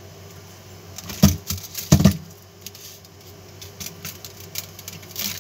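Copper magnet wire rustling and scraping as it is pulled by hand through and around a toroidal transformer core during winding of the primary, with two louder knocks about one and two seconds in.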